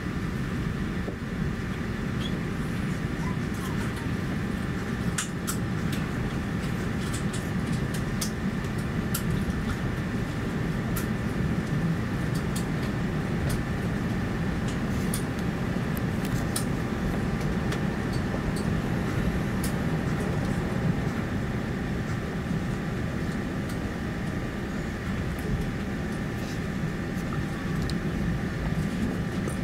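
Airbus A350-900 cabin noise during pushback: a steady low rumble with several faint, steady whining tones over it and a few scattered small ticks.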